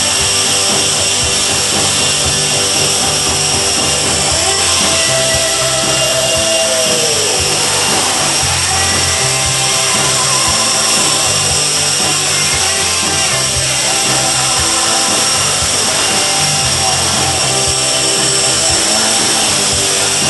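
Twister V2 RC helicopter's electric motors and rotors whining steadily in a hover, with the pitch sliding up and down a few times as the throttle changes.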